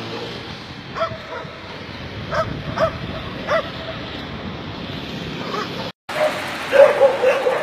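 Stray dogs barking in short barks spaced a second or so apart; the sound cuts out briefly about six seconds in, then louder, quicker barking follows.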